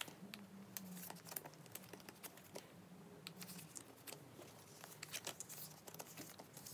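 Photocards being slid into the clear plastic pockets of binder pages: soft plastic crinkling and rustling with scattered light ticks.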